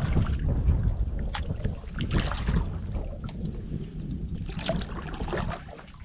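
Kayak paddle strokes splashing and dripping in calm river water, in two spells, about two seconds in and again near the end, over a steady low rumble of wind on the microphone.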